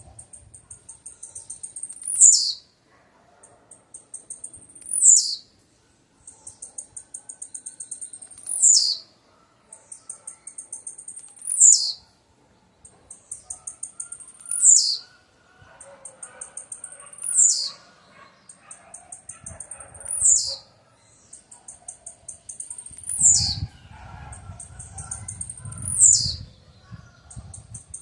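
Blue-black grassquit (tiziu) singing the same short song over and over, about every three seconds: a quick run of high ticks ending in a sharp downward slur.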